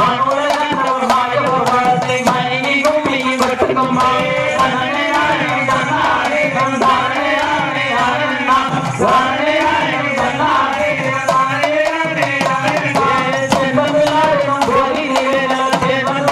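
Tamil folk dance music for a Valli Kummi: a bending melody over a steady, driving drum beat, played loud and without a break.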